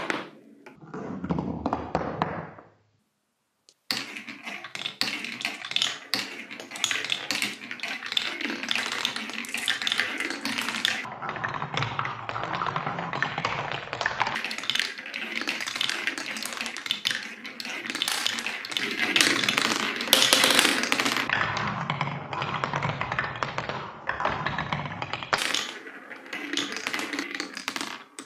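Marbles and balls clicking and clattering on a wooden marble run. First glass marbles knock against each other and the walls of a wooden tray; after a short silence comes a long, dense run of clicks and knocks as coloured balls roll down wooden chutes and drop into a wooden tray.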